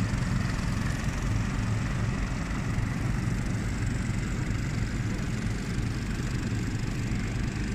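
Small outboard engines of motorized river bamboo rafts running steadily as the rafts pass, a constant low hum without breaks.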